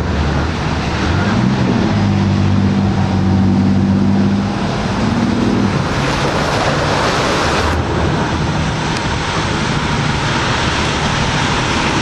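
Coast Guard small rescue boat's engines revving up about a second in and running hard into heavy surf, with loud rushing water and wind on the microphone. About halfway through the engine tone is masked as a breaking wave throws spray over the bow in a louder, hissing rush.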